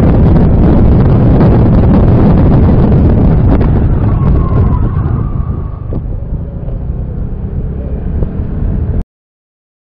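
Loud rumbling road and wind noise from a car driving on a rain-soaked road, picked up by a dashcam's microphone. It eases about six seconds in and cuts off abruptly near the end.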